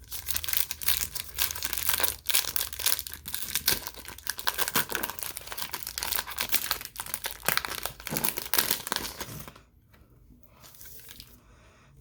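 Crinkling and rustling of a cellophane card-pack wrapper as cards are handled, dense and irregular, stopping about nine and a half seconds in.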